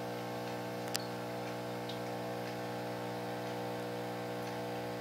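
Steady electric buzzing hum of an aquarium air pump running the bubbler, with a sharp click about a second in and a few fainter ticks.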